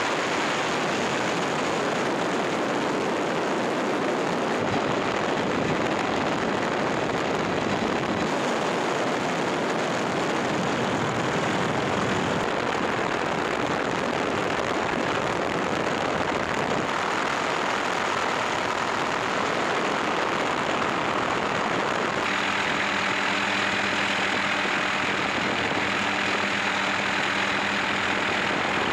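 Helicopter engine and rotor noise heard from inside the aircraft: a steady, loud rush. About three-quarters of the way through, a few steady humming tones join it.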